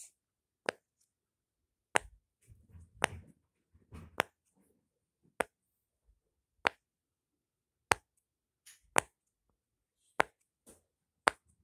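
A handheld fidget toy being worked, making about ten sharp pops roughly one a second, with soft handling noise before some of them.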